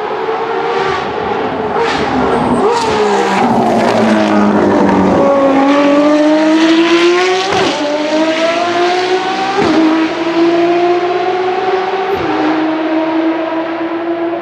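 A Ferrari race car's engine on track. Its pitch falls for the first few seconds as it brakes and downshifts, then it accelerates hard, with three quick upshifts about two to two and a half seconds apart, the pitch climbing between each one.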